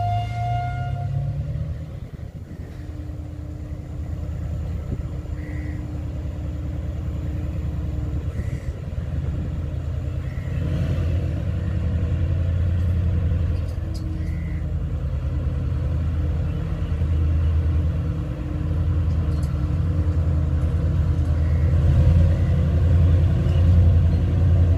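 Diesel engine of an approaching passenger train running with a steady low drone that slowly grows louder as it nears. The tail of a horn blast cuts off in the first second.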